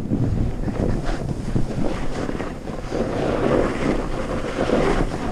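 Wind buffeting the helmet camera's microphone during a fast descent, mixed with the hiss and scrape of the rider's edges through choppy snow, growing a little louder about three seconds in.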